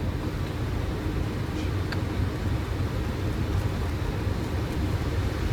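Steady rushing background noise on a Boeing 737 flight deck in flight, with no changes or distinct events.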